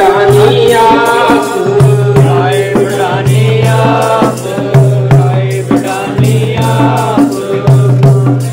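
Sikh devotional hymn (kirtan) sung by a group, with a dholak drum and other percussion keeping a steady beat.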